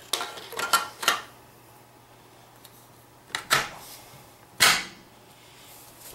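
Remington 870 pump shotgun's barrel being slid over the magazine tube into the receiver: a quick cluster of metal clicks and scrapes in the first second, then two more short scraping knocks, the last and loudest about four and a half seconds in.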